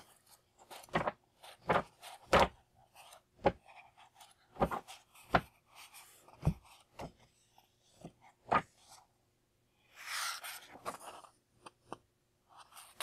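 Pages of a thick book being flipped by hand, about a dozen quick, separate page turns, with a longer rustle of riffled pages about ten seconds in.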